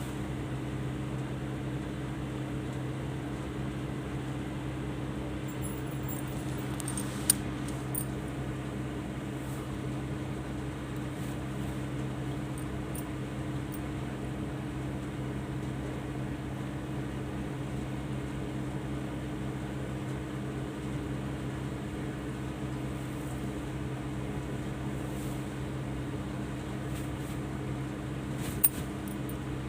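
A steady low mechanical hum, like a fan running, with two sharp clicks: one about seven seconds in and one near the end.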